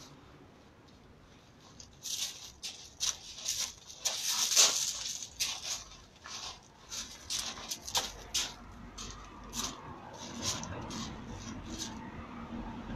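Footsteps crunching and scuffing on gravel in an irregular run of short bursts, loudest about four and a half seconds in, with a sharper knock about eight seconds in.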